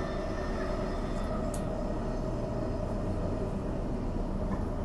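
Bombardier B-series electric multiple unit running on the line: a steady rumble of wheels on track with a constant electric motor whine.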